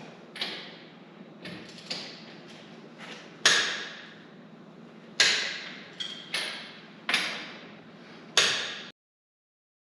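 Click-type torque wrench set to 80 ft-lb clicking sharply with a short metallic ring as wheel lug nuts reach the set torque, a click about every second, three of them much louder. The sound cuts off abruptly near the end.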